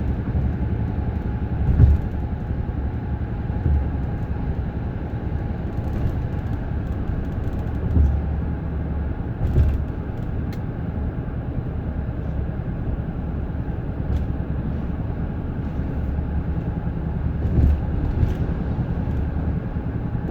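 2010 Honda Odyssey driving with a steady low drone from the rear, broken by a few louder thumps. This is the rear brake noise that the dealer put down to a seizing right rear caliper, whose slide pins had been fouled by brake dust through torn boots.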